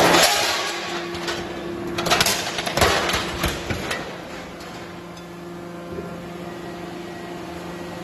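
Hydraulic tiger-head (alligator) scrap shear working: its hydraulic pump runs with a steady hum while the jaw closes on a pile of scrap metal, with several bursts of metal crunching and clanking in the first four seconds. After that only the steady hum remains.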